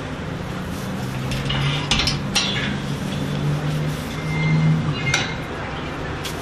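A few sharp clinks and knocks from a long-handled stall-cleaning tool being worked in a horse stall, over a steady low hum.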